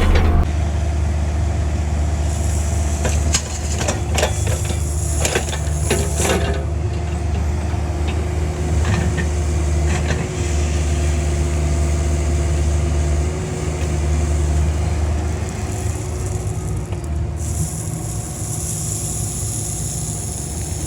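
Cat 305 mini excavator's diesel engine running steadily under a constant hydraulic whine, with a cluster of knocks and rattles about three to six seconds in as the bucket works gravel into the trench and tamps it down.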